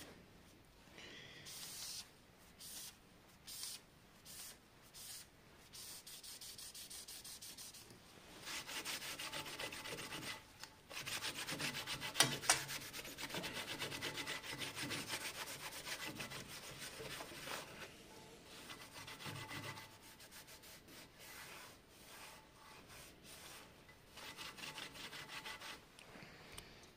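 A cloth rag rubbed back and forth over the metal cutterhead of a Belmash 2200 thickness planer, cleaning it during knife replacement. Short scattered wipes at first, then a long run of fast strokes through the middle with two sharp clicks about twelve seconds in, then scattered wipes again.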